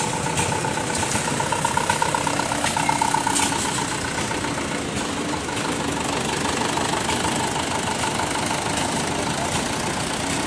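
Mitsubishi Fuso Canter truck's turbo-intercooled diesel engine idling steadily, with an even, rapid pulse.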